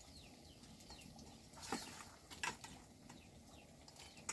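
Faint birds chirping, short high falling calls, with a few sharp clicks about a third and halfway in.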